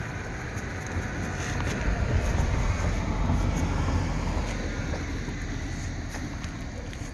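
A car passing on the nearby street, its tyre and engine noise swelling up to a peak and fading away again.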